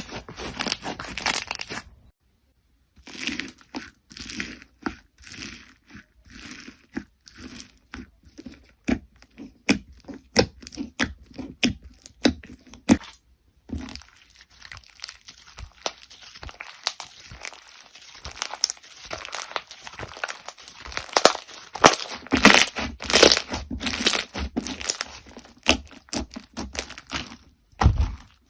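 Crunchy slime worked by hand, giving dense runs of crackling and crunching pops. The sound comes in separate takes, cut apart by two short silent breaks, one about two seconds in and one about halfway through.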